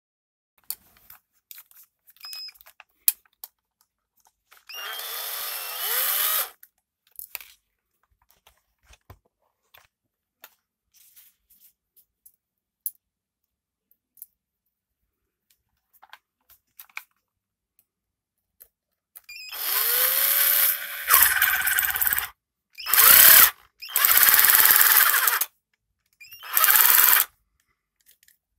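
Cordless electric screwdriver fitted with a 3D-printed torque limiter, running in short bursts on the screws of a small metal plate: once about five seconds in, then four times in quick succession from about nineteen seconds on. Light clicks of handling the plate and screws come in between.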